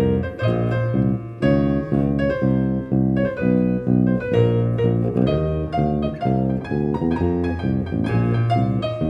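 Piano music: an even, steady run of notes and chords.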